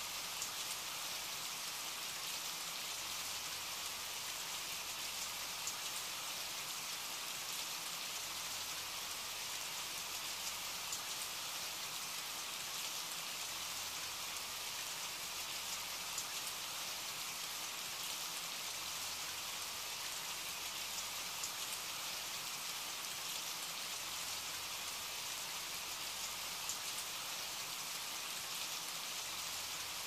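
Steady rain: an even hiss with faint scattered drop ticks.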